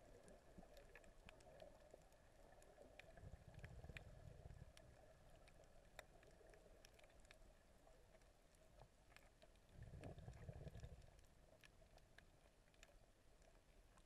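Near silence underwater: faint, scattered sharp clicks and crackles, with two brief low rumbles, about three and ten seconds in.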